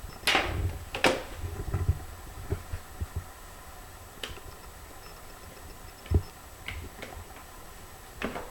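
Handling noise from a plastic welding helmet being turned and adjusted: a brief rustle near the start, then scattered sharp clicks and a dull knock.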